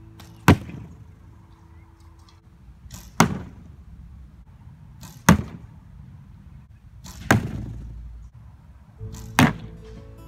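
Arrows striking a cardboard box target five times, about two seconds apart, each a sharp, loud hit.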